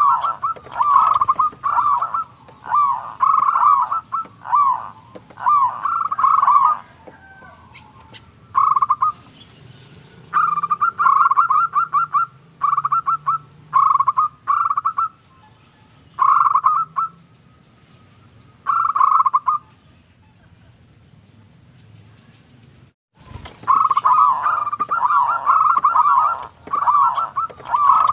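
Zebra dove (perkutut) cooing: loud, rapid runs of short rolling notes repeated phrase after phrase, the singing falls off for a few seconds past the middle, then starts again in a fast run near the end.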